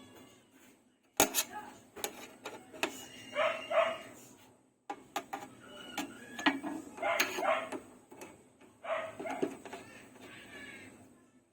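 A dog barking and yelping several times, each call under a second, mixed with sharp clicks and knocks of hard objects being handled.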